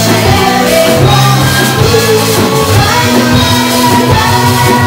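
Live band playing loud with a drum kit and guitar over a steady beat.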